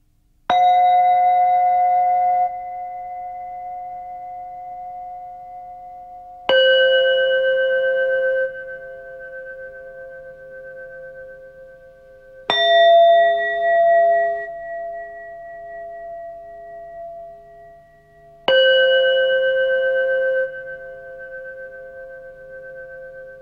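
Soundtrack of struck, bell-like ringing metal tones: four strikes about six seconds apart, each at a slightly different pitch. Each strike rings on with a slow pulsing beat, and its brighter overtones cut off about two seconds after the strike.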